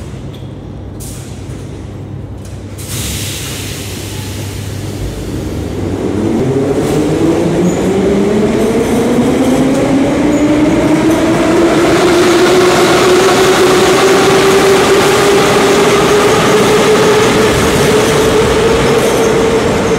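Moscow Metro retro train 'Sokolniki' (81-717.5A cars) pulling away from the platform. After a low steady hum, its traction motors begin to whine about six seconds in. The whine rises in pitch and grows louder as the train gathers speed, then holds steady over rumbling wheels.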